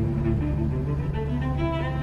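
Background music: a melody of short held notes over a steady low drone.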